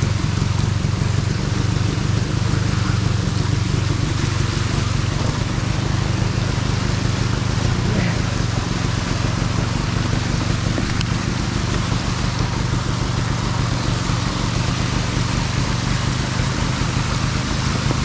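A 300cc two-stroke dirt bike engine running steadily at low revs, with a steady hiss over it.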